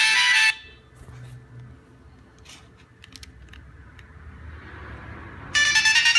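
Nokia 3220 ringtone melody cut off abruptly about half a second in. After a pause holding a low hum and a few faint clicks, the next Nokia ringtone starts loudly near the end.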